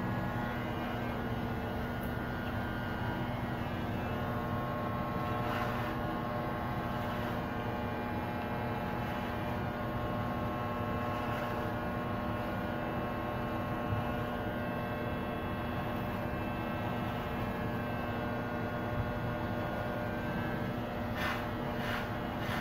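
Electric hair clippers running with a steady buzzing hum as they cut hair.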